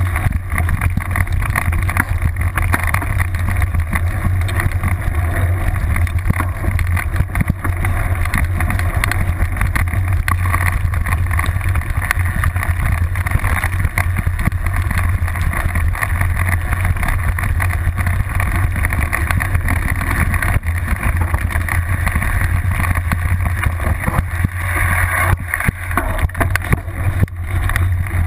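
Mountain bike ridden fast over a rough grassy trail, picked up by a camera clamped to the seat post: a steady low rumble of wind and frame vibration with constant rattling and knocks from the bumps.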